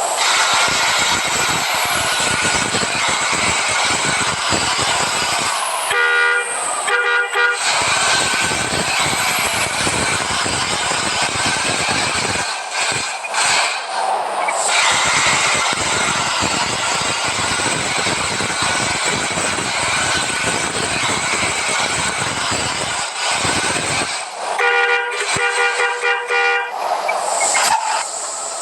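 Bus with a rebuilt exhaust running loud, its multi-tone horn sounding two short blasts about six seconds in and again near the end.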